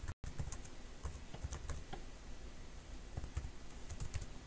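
Computer keyboard typing: irregular keystrokes in short runs.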